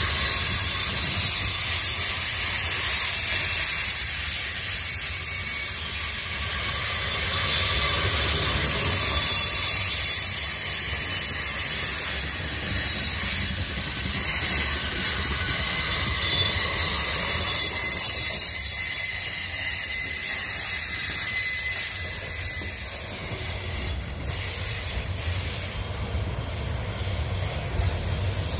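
Freight hopper wagons rolling past on the rails in a steady run, wheels and bogies rumbling, with a thin high-pitched squeal from the wheels that comes and goes.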